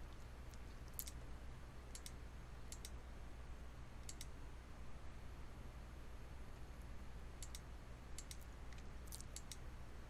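Computer mouse clicking about a dozen times at uneven intervals, short sharp clicks as the zoom button is pressed, over a faint steady low hum.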